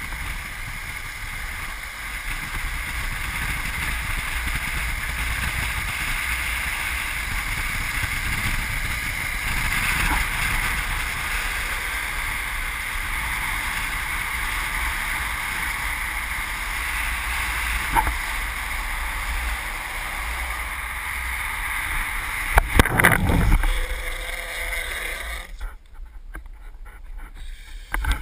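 Longboard wheels rolling fast on asphalt, with wind rushing over the pole-mounted camera's microphone in a steady roar. A sharp knock comes partway through and a cluster of loud knocks about three-quarters of the way in. A few seconds before the end the roar drops away as the board slows.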